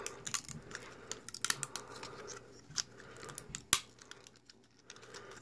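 Irregular small clicks and snaps of 3D-printed plastic raft material being picked and broken off the bottom edge of a freshly printed part, the sharpest snap about three and a half seconds in.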